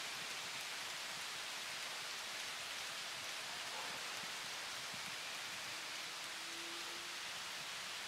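Steady, even outdoor background hiss with no distinct events.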